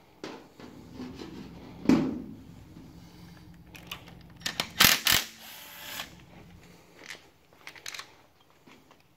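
Tools and engine parts being handled: scattered clicks and knocks, with a louder knock about two seconds in and a cluster of sharp clicks near the middle, followed by about a second of rustling.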